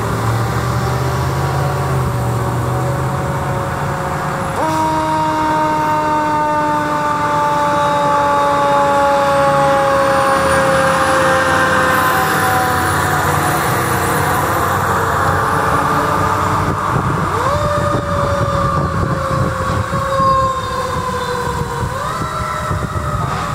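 Fire apparatus mechanical siren winding down slowly in pitch, then spun back up twice and left to coast down again, over the rumble of the truck's engine.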